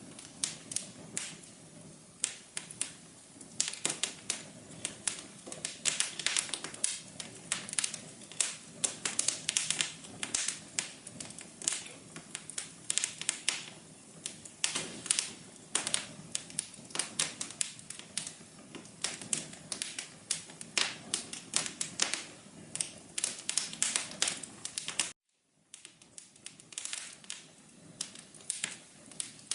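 Wood fire crackling: dense, irregular pops and snaps over a low, steady rush of flame. The sound drops out to silence for about half a second near the end, then the crackling resumes.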